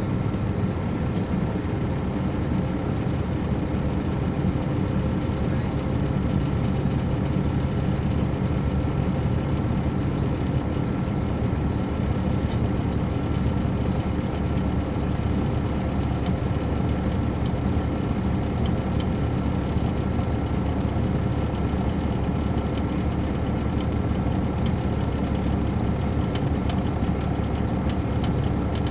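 The Caterpillar C13 ACERT diesel engine of an MCI D4500CL coach, heard from inside the passenger cabin, running with a steady drone. A few faint clicks or rattles come through: one about twelve seconds in and several near the end.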